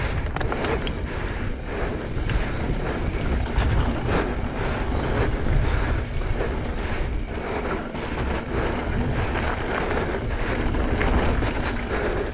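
Mountain bike riding fast down a dirt trail: tyres rumbling over packed dirt and the bike clattering with many small knocks over bumps, with wind buffeting the microphone.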